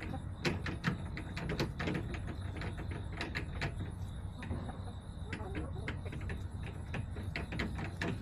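Irregular sharp taps, several a second, typical of hens pecking at feed on a hard surface, over a steady low hum.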